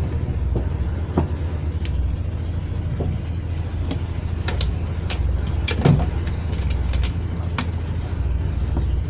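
A steady low mechanical rumble, with scattered sharp clicks and taps, the loudest about six seconds in.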